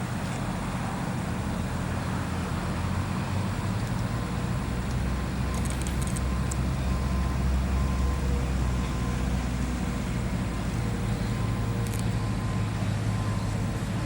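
A large engine running steadily with a low rumble that grows a little stronger partway through, with a few faint clicks.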